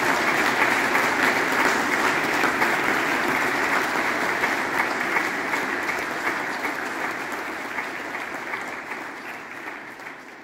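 Congregation applauding; the clapping holds steady, then slowly dies away over the last few seconds.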